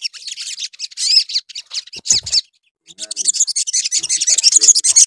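Olive-backed sunbird singing in full voice: quick, high twittering chirps that break off briefly about halfway through, then come back as a dense, fast run of twitters.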